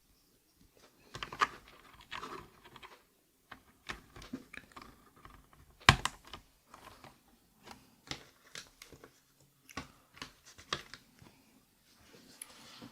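Irregular plastic clicks and knocks from a mechanical keyboard being handled while switches are pressed into its hot-swap sockets. The sharpest knock comes about six seconds in.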